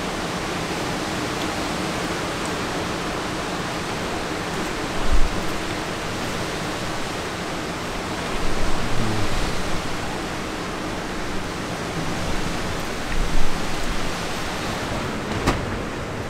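A steady din of strong blizzard wind blowing around the wooden shelter, with a few short low thumps and one sharp click near the end.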